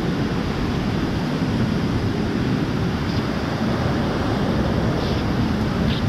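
Waterfall rushing steadily, a loud even noise without a break.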